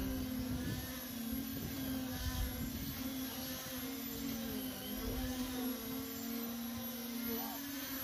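Concrete-pour machinery running steadily, with the concrete pump's hose discharging onto the slab and a poker vibrator working in the fresh concrete. It makes a steady buzzing hum, with irregular low rumbles as the concrete surges out.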